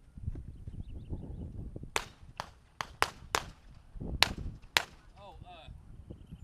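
Handgun shots fired on a competition course of fire: about seven sharp shots, in quick pairs and singles, over roughly three seconds, with low rumbling noise before and between them.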